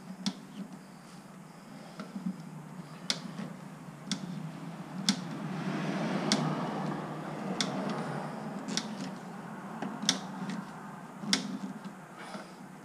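Glue-on paintless dent puller being worked on a motorcycle fuel tank to pull a dent: sharp clicks about once a second, with a swell of rustling around the middle.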